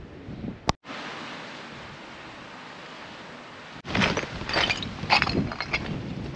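A sharp click, then a steady rushing noise; after an abrupt cut, an irregular clatter of sharp knocks and rustling.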